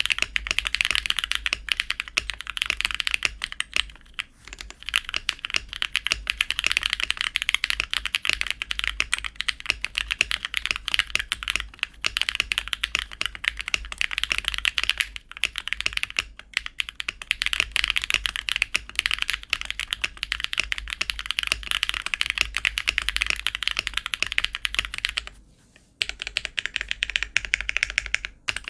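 Fast continuous typing on a custom 60% mechanical keyboard with lubed Drop Holy Panda tactile switches, aluminium plate, acrylic case and PBT keycaps: a dense, even clatter of keystrokes, with a brief pause near the end.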